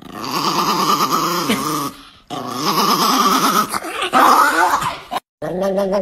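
A dog making long, drawn-out growling and grumbling vocalizations, three stretches with short breaks between them. The last stretch starts near the end and holds a steadier pitch.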